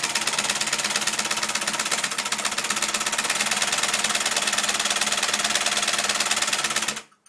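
Homemade four-piston solenoid engine running fast with no load: a rapid, even mechanical clatter of its magnet pistons, tappets and switching contacts over a steady hum. It cuts off abruptly about seven seconds in.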